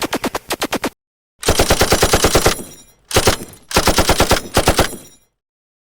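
Automatic gunfire sound effect: four rapid bursts of shots at about ten a second, the longer bursts leaving a ringing tail.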